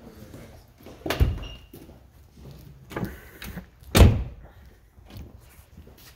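Car door of a 2010 Porsche 911 Carrera S being shut: two heavy thumps, one about a second in and a louder one about four seconds in, with a lighter knock between them.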